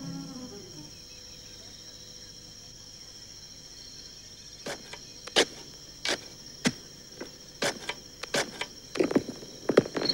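Insects shrilling steadily, with a series of sharp, irregular strikes of a hand hoe chopping into the soil starting about halfway through, roughly two a second.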